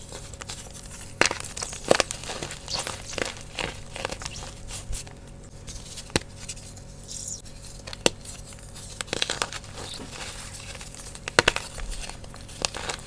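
Hands crushing and crumbling wet blocks of Sports Chalk gym chalk: an irregular run of crunchy crackles, with sharp snaps about a second in, at two seconds, around eight seconds and near eleven and a half seconds.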